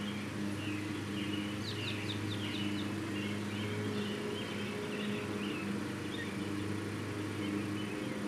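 Outdoor evening ambience: many short, irregular chirps from small animals, with a quick run of falling chirps about two seconds in, over a steady low hum.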